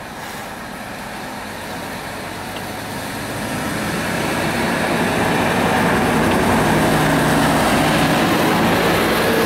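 Ikarus 280 articulated city bus and its six-cylinder diesel engine driving up and past at close range, the engine hum and tyre noise growing steadily louder as it nears, loudest from about halfway in as it goes by.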